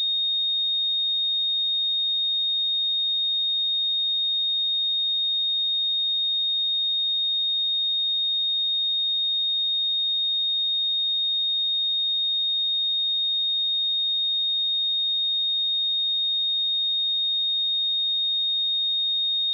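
A pure 3704 Hz sine-wave test tone, one steady high-pitched note held at an even level, used to check speakers and headphones.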